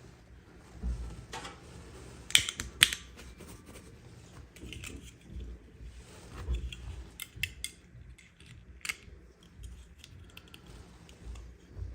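Packaging and small plastic toy parts being handled during an unboxing: a scattered series of sharp clicks and crackles, loudest twice in quick succession a little over two seconds in.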